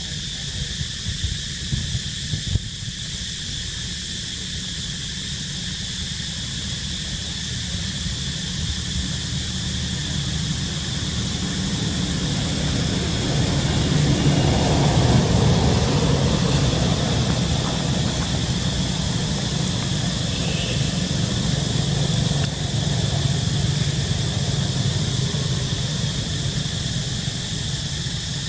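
A distant engine passing: a low rumble that slowly builds to a peak about halfway through and then slowly fades, over a steady high-pitched drone of insects.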